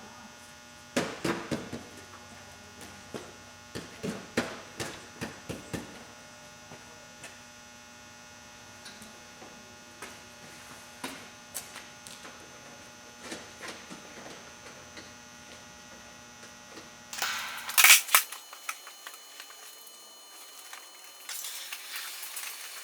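Scattered sharp clicks and knocks of hands working with bumper parts and hardware over a steady electrical hum, with a louder clatter near the end, after which the hum drops out.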